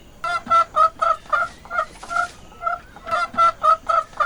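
Chicken clucking: a quick run of short, pitched clucks, about four a second, with a brief pause about halfway through.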